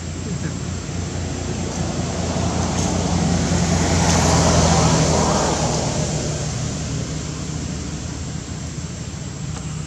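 A motor vehicle going past, its noise swelling to a peak about halfway through and then fading away, over a steady low hum.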